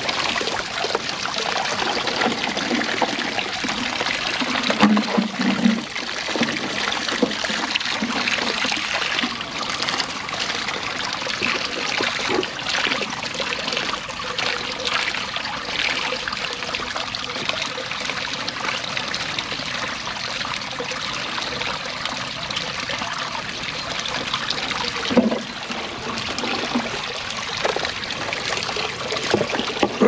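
Shallow creek water trickling and splashing steadily around a plastic barrel set in the stream as a ram pump intake. There are a couple of brief knocks, about five seconds in and again near the end.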